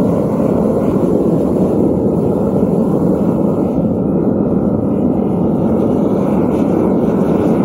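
Gas-fired metal-melting furnace burner running at full flame, a steady, even rush of burning gas while aluminium melts in the crucible.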